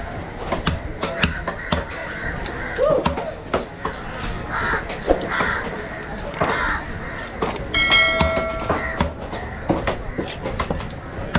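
Crows cawing repeatedly over the sharp knocks of a heavy knife chopping fish on a wooden block. About eight seconds in, a steady pitched tone sounds for about a second.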